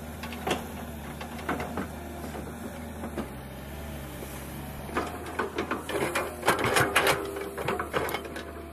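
Kobelco SK210LC hydraulic excavator's diesel engine running with a steady drone and a faint hydraulic whine that shifts in pitch as the arm moves. Scattered knocks of the bucket working the soil thicken into a dense run of clattering from about five to eight seconds in.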